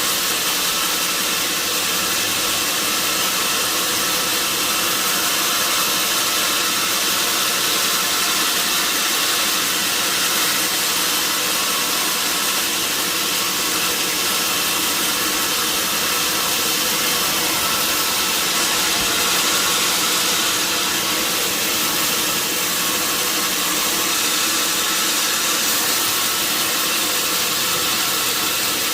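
A sawmill's engine running steadily under a constant hiss, with no change in speed and no knocks or cuts.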